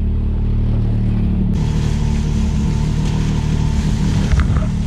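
Can-Am Maverick X3 Turbo's turbocharged three-cylinder engine idling steadily while warming up; about a second and a half in the sound suddenly turns brighter.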